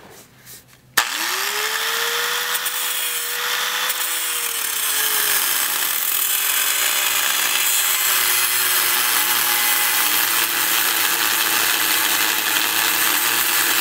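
Corded electric grinder switched on about a second in and grinding steel. Its motor whine rises quickly as it spins up, then holds under a loud, steady grinding hiss. The whine drops a little in pitch midway as the disc works the metal.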